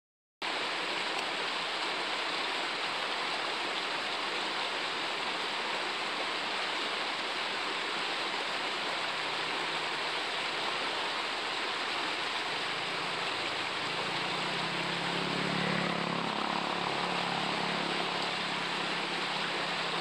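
Steady rush of flowing river water. A low rumble joins about two-thirds of the way in and eases off near the end.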